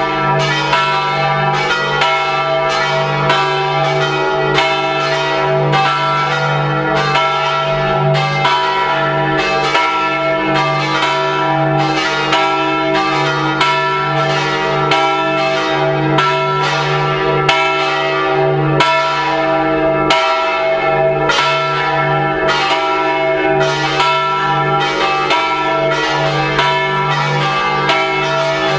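Full peal of the church's bronze bells swinging and ringing together, strikes coming about twice a second and each ringing on into the next. This is the Sunday peal calling the faithful to evening mass.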